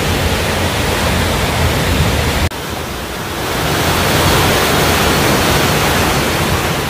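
Rushing water of a mountain-stream waterfall pouring into a rock pool: a loud, steady, even rush. About two and a half seconds in an abrupt cut switches to white water running through a narrow rock chute, with less deep rumble and more hiss.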